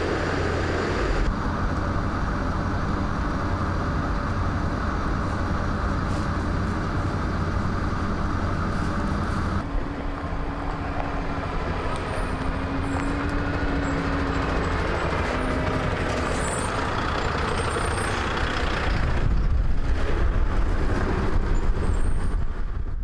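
Fire engines' diesel engines: a steady engine hum at first, then, after a cut about ten seconds in, fire trucks driving slowly along a dirt forest track, growing louder as one passes close near the end.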